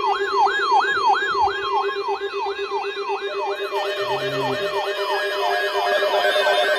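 Electronic siren-like yelp, its pitch sweeping rapidly about three times a second over a steady lower tone. Further steady tones join about four seconds in.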